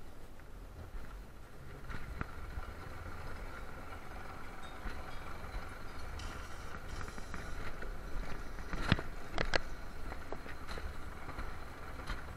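Alpine coaster sled running along its steel tube rails: a steady low rumble with a faint whine from the wheels, and a few sharp clicks about nine seconds in.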